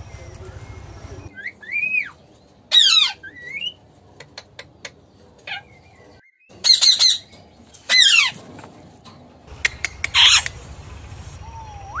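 Rose-ringed (Indian ringneck) parakeets giving a series of loud, shrill squawks, several sliding steeply down in pitch, with a few sharp ticks in between.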